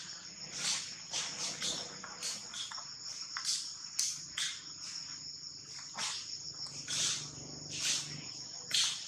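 Insects trilling steadily in a high, even drone, with short dry rustles about once a second over the top.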